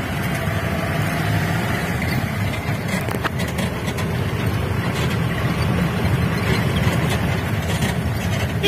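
Off-road jeep's engine and tyres heard from inside the cabin while driving: a steady low rumble.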